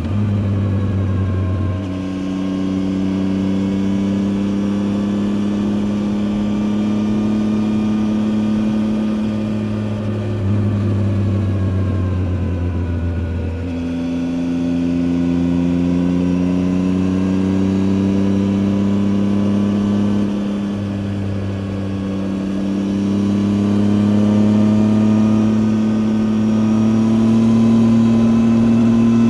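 Triumph Tiger 800 XCA's three-cylinder engine running as the motorcycle rides along. The engine note changes pitch a few times, near the start and around the middle, then climbs steadily toward the end as the bike accelerates.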